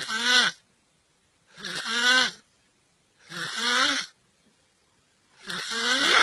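A person snoring heavily: four loud snores about a second and a half to two seconds apart. Each snore rises in pitch over a breathy hiss.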